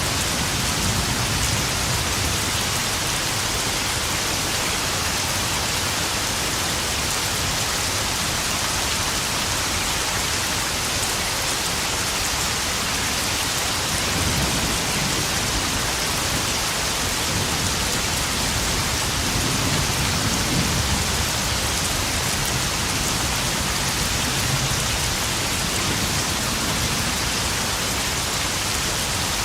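Steady rain pouring down and pattering on puddles in a spring thunderstorm. Low rumbles of distant thunder swell about halfway through.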